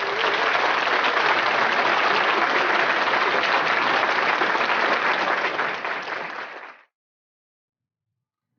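A crowd applauding, a dense and steady wash of claps that fades away and stops about two-thirds of the way through.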